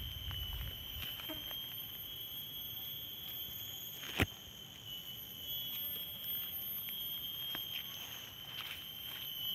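Steady high-pitched drone of insects calling in the undergrowth, holding one shrill tone throughout. A single sharp click about four seconds in, with a few fainter ticks.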